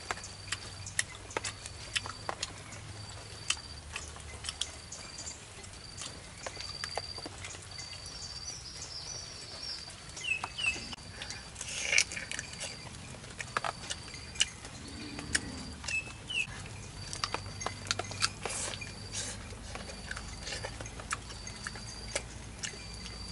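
A person eating fried chicken by hand: scattered clicks and smacks of chewing and pulling meat off the bones, loudest about halfway through. Behind it a high, short note repeats evenly about once a second, with a couple of brief chirps.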